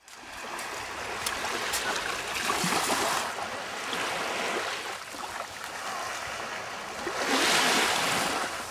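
Small waves lapping on a sandy shore, with two louder washes of surf.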